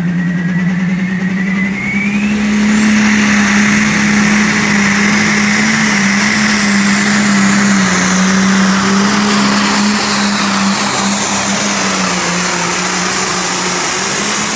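Turbocharged International pulling tractor's diesel engine at full throttle, dragging a weight-transfer sled down the track. A high whine rises in pitch over the first two seconds or so as the engine comes up to speed, then it runs loud and steady at high rpm.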